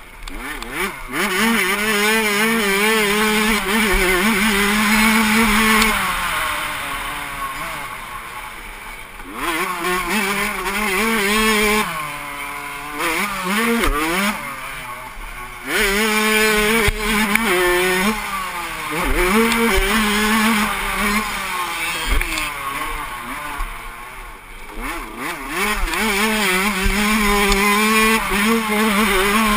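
Suzuki RM85 85cc two-stroke motocross engine racing on a dirt track, revving up through the gears and falling off as the throttle is shut for corners, several times over. Heard from a helmet camera, with wind noise on the microphone.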